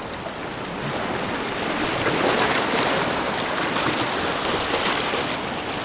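Ocean surf washing over a rocky shoreline: a steady rush of water that swells for a few seconds in the middle, then eases.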